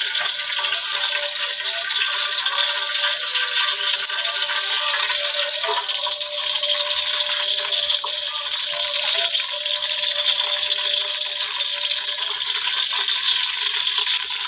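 Hot cooking oil sizzling steadily, frying an egg in a pan and then chopped garlic in a pot. A faint steady whine of tones sits under the sizzle.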